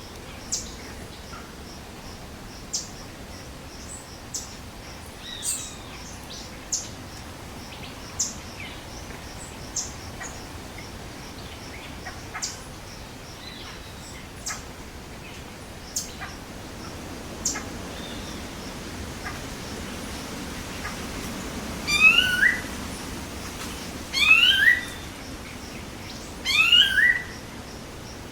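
Rainforest birds calling: short sharp chirps every second or two over a faint high pulsing in the background. In the last third come four louder rising calls, each about half a second long, spaced about two seconds apart.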